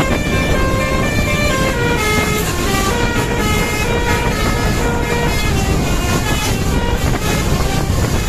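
Bus basuri (telolet) musical horn playing a long, continuous melody of short notes stepping up and down in pitch, over steady low vehicle noise.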